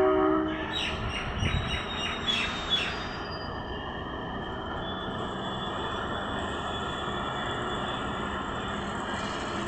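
Diesel multiple unit train: its horn cuts off just after the start, followed by a rapid series of clicks over about two seconds and then the steady rumble of the train running.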